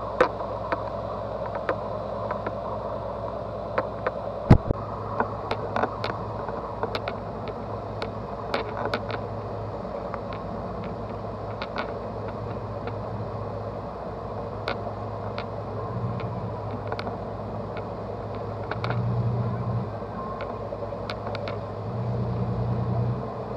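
A dive boat's engine running under way: a steady low hum with water rushing in the wake, and scattered sharp clicks and knocks. The hum swells briefly twice near the end.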